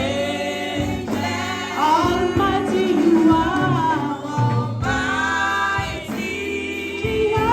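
Gospel worship song: a group of singers with a low sustained accompaniment.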